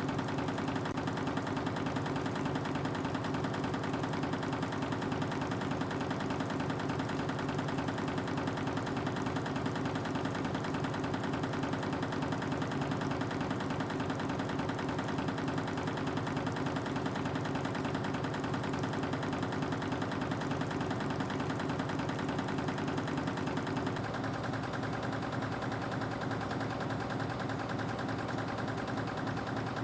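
Spring-wire machinery with a reciprocating wire uncoiler running continuously: a dense, rapid mechanical clatter over a steady hum, changing slightly in character about two-thirds of the way through.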